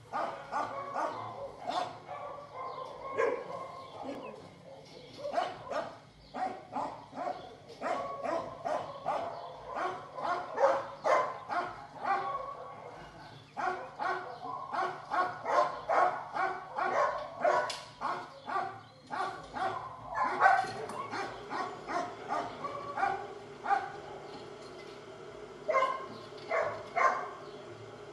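Several kennelled dogs barking over and over, short barks following each other several times a second with brief lulls.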